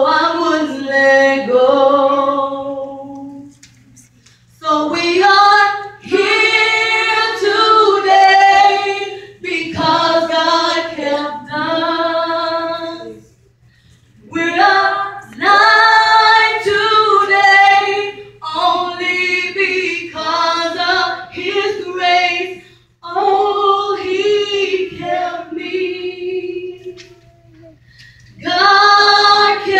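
A woman singing a gospel song solo through a microphone and PA, unaccompanied, in long held phrases separated by short pauses.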